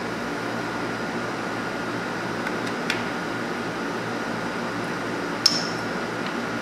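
Steady fan-like hum with a few light metallic clicks as the four-jaw chuck of a metal lathe is adjusted by hand, the sharpest about five and a half seconds in with a brief ring.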